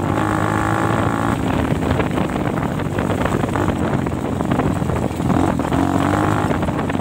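DTM 150 dirt bike engine running as it rides along, steady and loud. Its note stands out clearer and higher near the start and again about six seconds in, over a rough rumbling noise.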